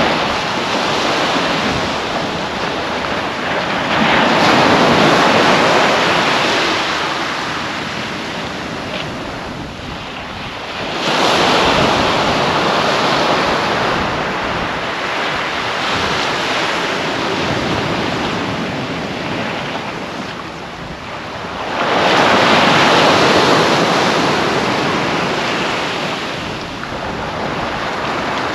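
Small sea waves breaking and washing up a sandy beach. There is a steady wash throughout, swelling loudest as waves break about four, eleven and twenty-two seconds in.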